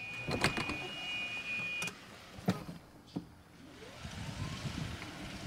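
Club Car Precedent golf cart's reverse warning buzzer sounding a steady high tone as the cart backs down the trailer ramp, cutting off about two seconds in. A few sharp thumps follow as the cart rolls off the ramp.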